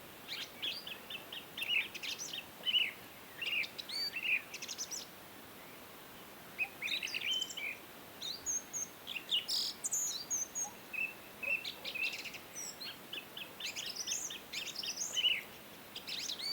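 Birds chirping and twittering in quick runs of short high notes, with a few short pauses between phrases.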